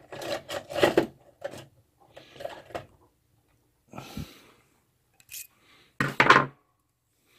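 A few short, irregular clatters and clicks of hand tools being handled on a workbench, as a pair of side cutters is picked up to trim resistor leads.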